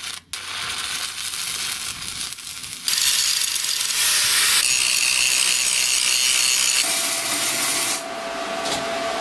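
Electric arc welding on steel, a steady hiss from the arc that goes on through several short takes and is louder from about three seconds in.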